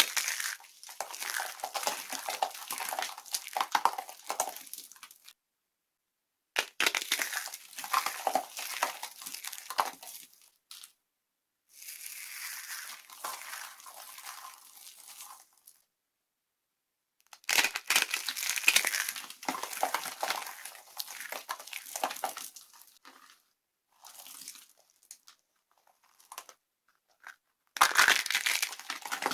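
Dry soap being crushed and crumbled, a dense crunchy crackle. It comes in six runs of one to five seconds each, separated by gaps of dead silence.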